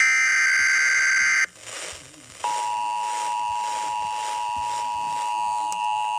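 Emergency Alert System tones on an FM radio broadcast. The last burst of the digital SAME header, a harsh data screech of about a second and a half, cuts off abruptly. About a second later the steady two-tone EAS attention signal starts and holds.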